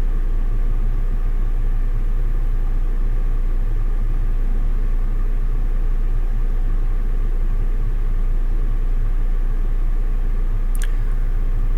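Steady rush of the 2016 Mazda CX-9's climate-control fan blowing air through the dash vents, over a low cabin rumble. The system is in auto at a 20 °C setting, yet the vents are blowing air at well over 47 °C: the owner's climate-control fault.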